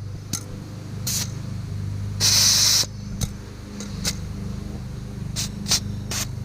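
Air hissing briefly at a car tire's valve stem as the pressure is checked and set to 40 psi: one half-second burst about two seconds in. A steady low hum and a few light clicks run underneath.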